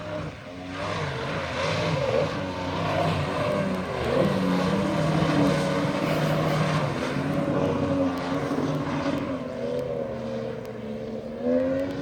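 Thundercat inflatable racing boat's outboard motor running hard, its revs rising and falling as the boat drives through the chop, with wind noise over it.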